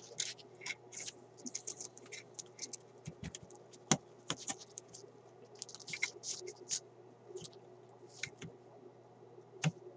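Small clicks, scrapes and rustles of hands handling wires and the sheet-metal chassis of a Philco car radio during disassembly, with a sharp click about four seconds in and another near the end. A faint steady hum runs underneath.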